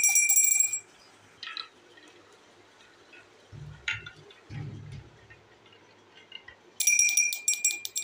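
A marble dropping into a faceted glass shot glass and rattling in it with a bright ringing clink, once at the start and again about seven seconds in. Between the two, a marble rolls along a wavy wooden track with a few soft knocks and a low rumble.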